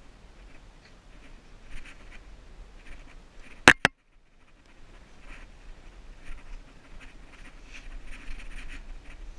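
Hands and clothing scraping and rustling faintly against sandstone during a climb up the rock. About three and a half seconds in come two sharp knocks in quick succession, the loudest sound, as the head-mounted camera bumps the rock face.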